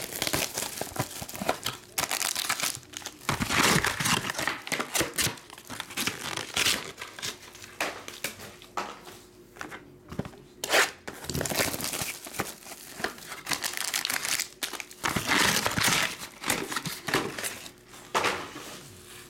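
Clear plastic shrink wrap crinkling and tearing as it is stripped off trading-card boxes, with foil card packs rustling, in irregular bursts.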